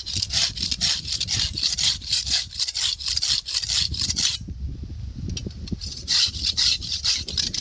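Rapid, rhythmic scraping strokes of a metal knife blade, several a second, pausing for about a second midway and then resuming.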